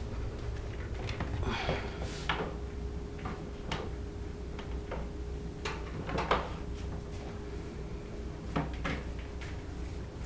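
Cables being moved about by hand behind a satellite TV decoder: scattered light knocks, taps and rustles over a steady low hum.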